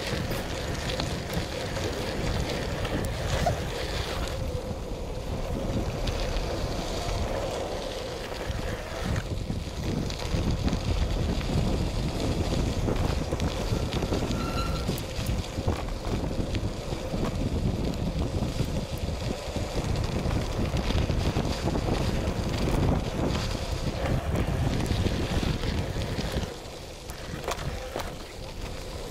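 Wind buffeting an action camera's microphone as a mountain bike rolls over a gravel trail, with a steady low rumble from the tyres on the gravel and scattered small clicks and rattles. It eases briefly near the end.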